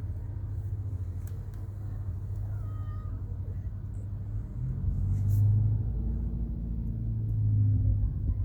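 Domestic cat purring close up while dozing: a steady low rumble that swells louder with its breaths, about five seconds in and again near the end.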